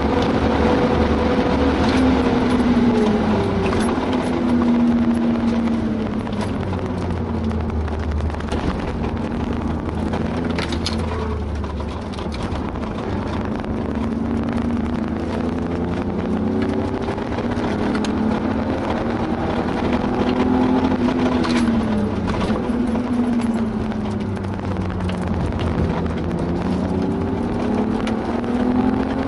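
BMW E36 328i's straight-six engine with a Remus cat-back exhaust, heard from inside the cabin at full track pace. The engine note drops sharply a few seconds in as the car brakes hard from high speed, then rises and falls several times through corners and acceleration.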